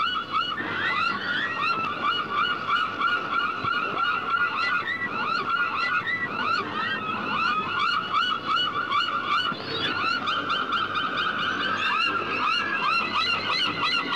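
A flock of gulls calling all at once, a dense, unbroken run of short overlapping cries.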